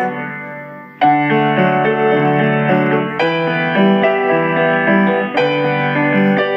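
Keyboard music, chords and melody notes played in a steady rhythm; the sound dies away over the first second, then playing starts again abruptly.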